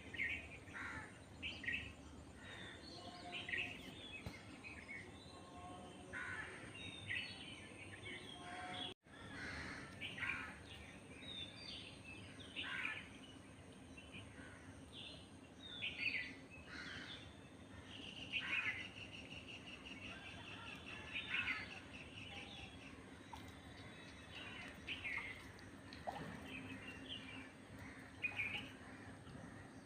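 Birds chirping and calling in many short notes, over a steady low hum of background noise, with a brief dropout about nine seconds in.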